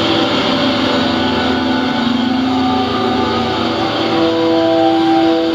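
Low, sustained droning background music with an even hiss under it. Its held notes move to a higher pitch about halfway through.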